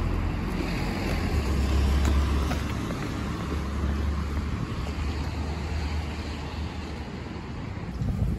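Outdoor street ambience: a steady low rumble and hiss from road traffic and wind on the microphone.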